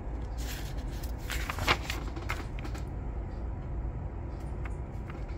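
Paper instruction-booklet pages being handled and turned: a few crackling rustles in the first two seconds or so, with one sharp crinkle near the middle of them, over a steady low hum.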